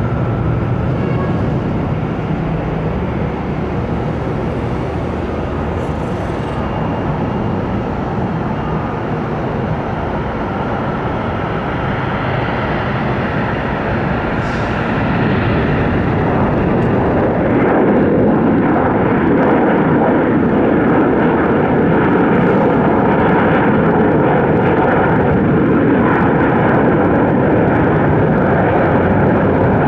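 Jet airliner's engines running, a loud steady noise with a whining tone in it, growing louder about halfway through.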